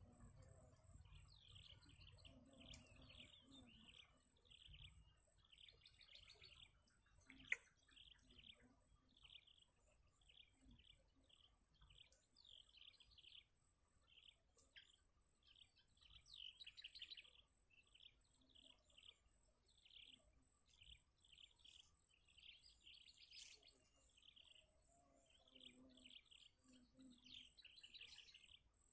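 Birds chirping in short, high calls repeated a few times a second, over a steady high-pitched buzz.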